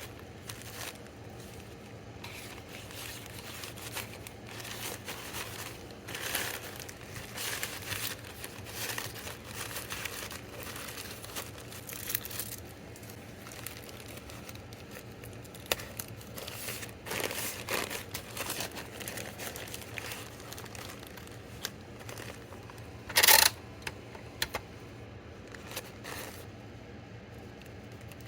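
Packing materials crinkling and rustling as orders are packed by hand, in scattered bursts, with one short, much louder rip about 23 seconds in.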